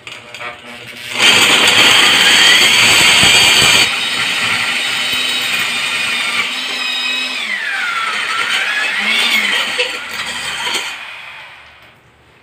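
Handheld wet diamond core drill with a water feed boring through a wall: the motor starts about a second in and runs loud and harsh for a few seconds, then runs on more steadily with a whine that falls and rises again, dying away near the end.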